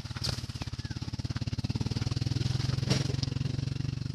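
A small engine running steadily with a fast, even throb that slowly grows louder, with two sharp snaps of brush underfoot, one near the start and one about three seconds in.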